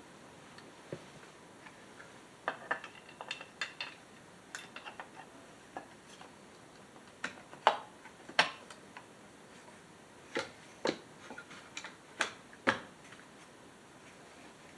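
Small metal chainsaw parts and hand tools clicking and clacking on a workbench during reassembly: scattered light taps, with a few sharper clacks about halfway through and again near the end.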